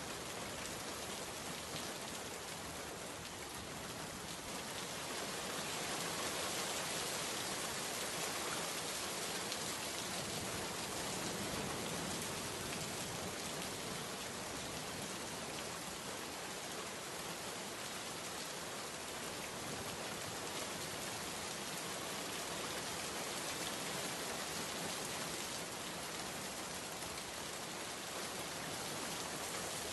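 Steady rain, an even hiss that swells gently in level now and then.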